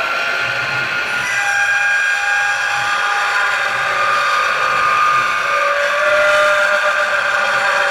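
Precision Matthews PM-727M CNC mill with a 3/8-inch four-flute end mill cutting aluminium angle: a steady high whine of the spindle and the cut, made of several tones, a few of which shift in pitch as the cut goes on.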